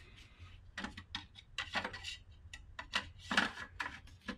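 Irregular light clicks and taps of wiring and parts being handled in a milling machine's electrical control panel, over a faint steady low hum.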